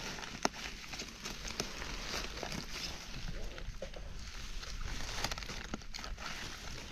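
Dry forest leaf litter rustling and crackling, with irregular sharp crunches and snaps spread through it.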